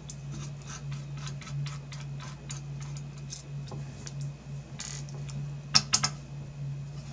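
Small screwdriver turning heatsink screws out through a graphics card's metal backplate: a run of light, even clicks, about three or four a second, with two sharper clicks a little under six seconds in. A steady low hum runs underneath.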